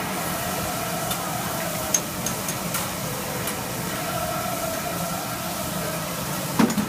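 Food sizzling on a large round flat-top griddle over a steady hiss, with a few sharp clinks of long metal utensils against the griddle, the loudest about two seconds in and near the end.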